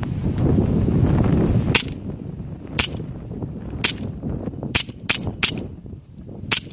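Colt 1911A1 100th Anniversary CO2 airsoft pistol firing seven sharp single shots, about a second apart at first and then quicker. Wind buffets the microphone with a low rumble during the first couple of seconds.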